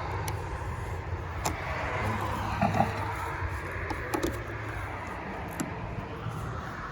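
Steady low background rumble, with a few light, sharp clicks and taps from a Phillips screwdriver working at the screws of a car door's interior handle trim.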